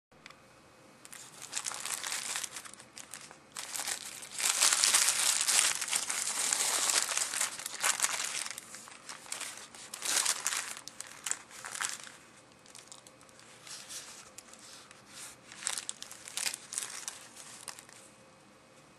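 Paper wrapping of a McDonald's Junior Chicken burger crinkling and rustling in irregular bursts as it is handled and unwrapped, loudest about four to eight seconds in.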